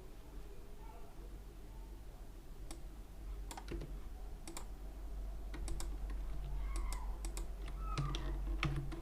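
Irregular clicks of a computer keyboard and mouse, about a dozen scattered through the latter part, over a steady low hum.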